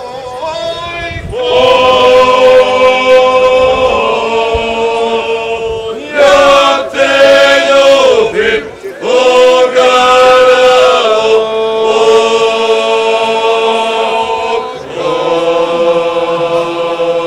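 A group of unaccompanied voices sings a traditional folk song in long, held, chant-like phrases. Each phrase breaks off and a new one starts, and a lower voice joins in the last phrase.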